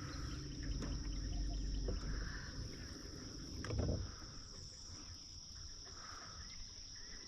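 Insects trilling in a steady high-pitched drone, with a softer chorus swelling and fading about every two seconds. A low rumble, like wind on the microphone, runs underneath, and there is one brief louder sound a little past halfway.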